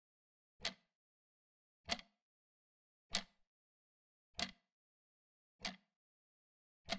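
Clock ticking slowly: six sharp, evenly spaced ticks about a second and a quarter apart, with silence between them.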